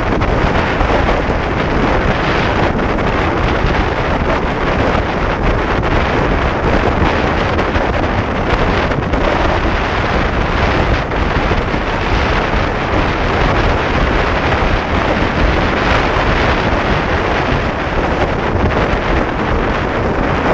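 Loud, steady wind rushing over the camera's microphone from a Yamaha R15 motorcycle riding at highway speed, with road noise underneath.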